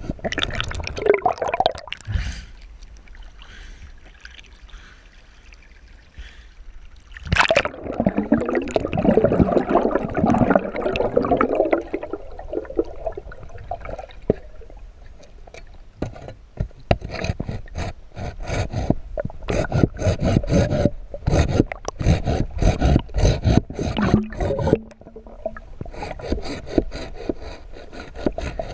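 Underwater sound of hands working a submerged tree snag in a river: irregular scraping and knocking of wood, many sharp clicks that come thicker in the second half. A loud stretch of rushing water noise starts about seven seconds in and lasts several seconds.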